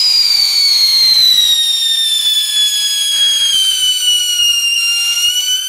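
Consumer whistling firework, the "Tiger Roaring", giving one long, loud shrieking whistle with a hiss beneath it, its pitch slowly falling.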